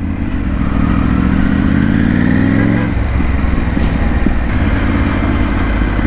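Triumph Tiger 900's three-cylinder engine through a Scorpion aftermarket exhaust, heard from the saddle as the bike accelerates: the note rises for about three seconds, drops at a gear change about halfway, then pulls on steadily.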